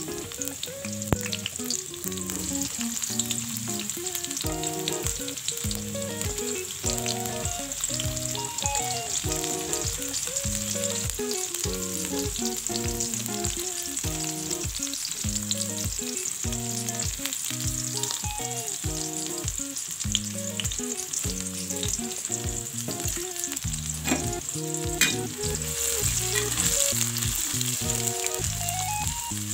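Sliced shallots, garlic, chillies and galangal frying in hot oil in a wok: a steady sizzle, stirred now and then, with a few sharp knocks of the utensil against the pan.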